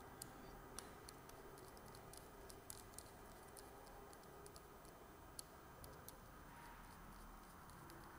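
Faint, irregular small clicks and ticks of a screwdriver tightening small screws that fix a plastic arm to the centre plate of a quadcopter drone frame.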